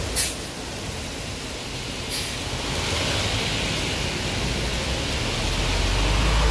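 City bus pulling away from the stop in heavy rain: a sharp clack at the start and another about two seconds in, then the hiss of tyres through standing water and a low engine rumble building louder toward the end, over steady rain.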